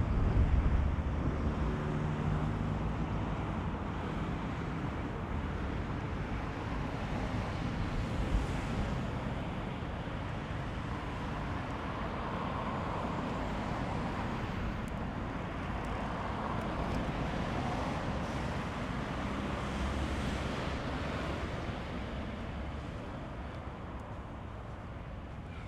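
Wind buffeting an action camera's microphone in strong gusts: an uneven low rumble with swells of rushing noise. It is loudest at the start and eases off near the end.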